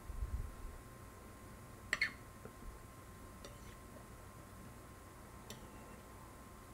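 Metal fork clinking on a plate while cutting into a tamale: one sharp clink about two seconds in, then two faint taps. A low thump at the start, and a faint steady high tone throughout.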